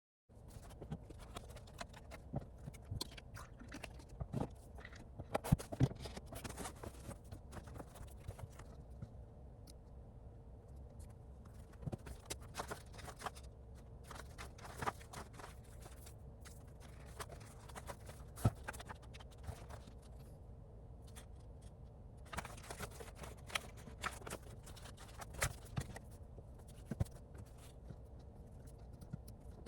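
Scattered small clicks, taps and scrapes at an irregular pace, a few of them louder, over a steady low hum.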